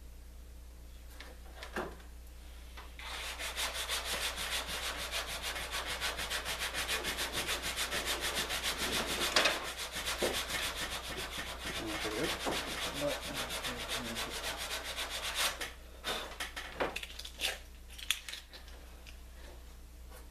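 A small wooden plank piece being hand-sanded, rapid back-and-forth rubbing strokes for about twelve seconds, taking it down so it fits the repair in the canoe hull. A few light knocks come before and after the rubbing.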